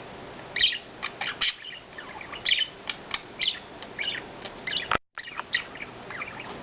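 Budgies chirping and chattering in quick, overlapping short calls. The sound drops out for a split second about five seconds in.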